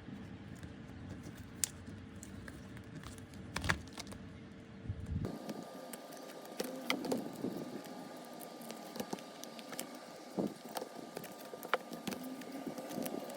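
Scattered clicks and knocks of objects being handled, over a steady background hum that changes abruptly about five seconds in.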